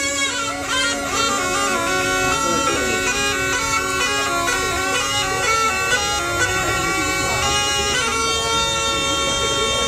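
Snake charmer's pungi, a gourd reed pipe, playing a quick melody over a steady drone.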